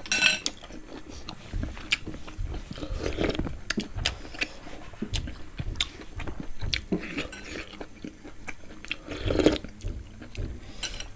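Close-up mouth sounds of eating roasted pig head: wet chewing, smacking and crunching, with many small sticky clicks. A short clink right at the start.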